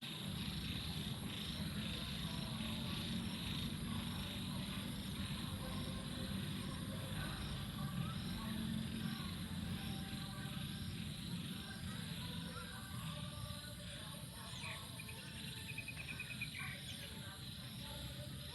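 Outdoor ambience of insects chirping steadily in a high, continuous chorus over a low rumble. A short, rapid chirping call comes in about fifteen seconds in.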